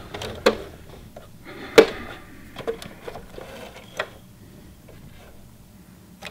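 A handful of separate clicks and knocks, the loudest about two seconds in, as the test-stitched fabric is handled and pulled out from under the presser foot of a Singer Heavy Duty sewing machine. The machine's motor is not running.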